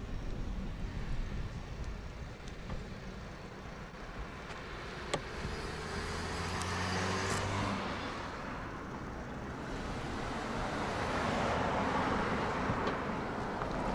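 Cars passing on the road. Engine hum and tyre noise swell as one approaches about halfway through, and swell again as another drives past near the end.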